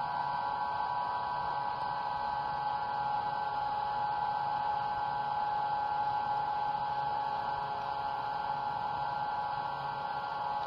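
Vibratory stress relief exciter motor clamped to a welded steel part, running steadily. It gives a constant electric hum made of several held tones, with no change in speed.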